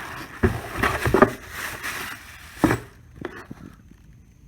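Rummaging through parts: rustling with several sharp knocks, stopping about three seconds in.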